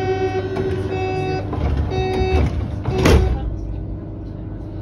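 Subway train's door-closing warning beeping in repeated short pulses, then the sliding doors bang shut about three seconds in, over the low hum of the stationary train.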